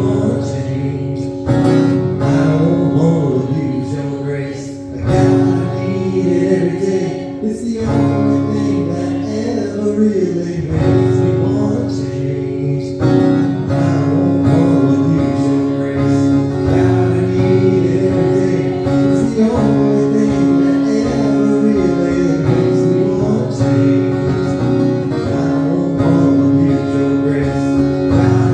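Live acoustic worship music: an acoustic guitar strummed steadily, with long held melody notes over the chords and no sung words.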